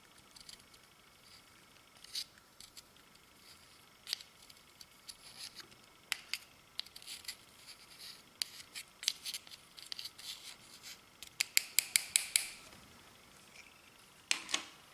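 Clear slime being squeezed and worked by hand, making crisp clicking and crackling pops, with a quick run of about eight sharp pops near the end.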